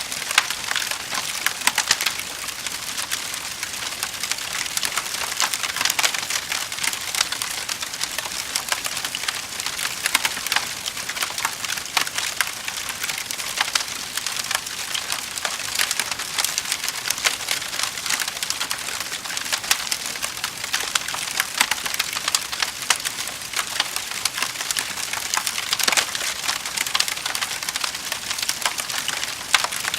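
Wood fire in a fireplace crackling and popping steadily, with dense sharp snaps over a soft hiss.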